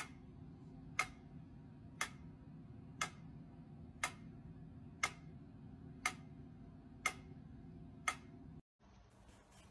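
Mechanical pyramid metronome ticking at a steady beat of about one tick a second, nine ticks, stopping abruptly near the end.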